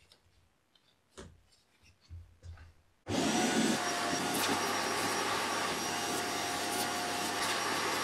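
Shop vacuum switching on suddenly about three seconds in and running steadily. Air rushes through a narrow homemade nozzle made from a plastic garden hose connector and quarter-inch hose. A few faint handling clicks come before it starts.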